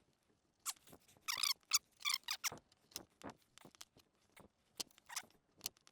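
Heavy-duty rubber jacket of an electric chain hoist's control cable squeaking and scraping in short bursts as it is gripped, pulled and cut with pliers and a knife, followed by scattered small clicks of the tools. The jacket is stuck fast to the wires inside.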